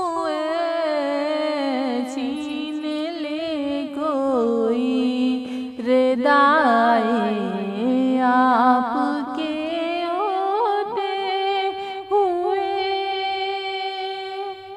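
A woman singing a naat in long, drawn-out wavering notes, the melody sinking lower in the middle and climbing back up.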